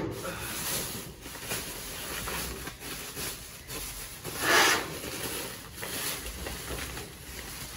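A black plastic garbage bag full of clothes rustling and crinkling as it is pulled and handled, with one louder crinkle about four and a half seconds in.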